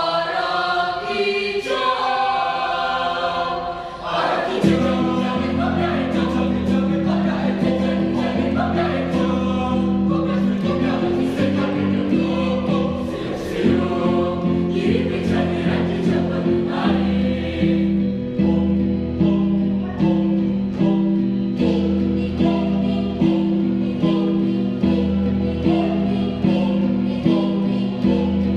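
Mixed youth choir singing an Indonesian folk arrangement in several parts. About four seconds in, a low, evenly pulsed repeated part enters under the higher melody and keeps a steady rhythm.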